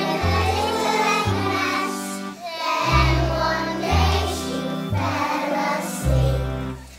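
Young children's choir singing a song in unison over an instrumental backing, with low accompaniment notes that change about once a second.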